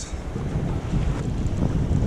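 Wind buffeting the microphone in a steady low rumble, over the wash of choppy sea water, with a few faint ticks.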